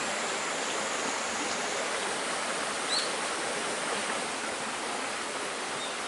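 Mountain stream running over rocks: a steady rush of water, with a brief high chirp about three seconds in.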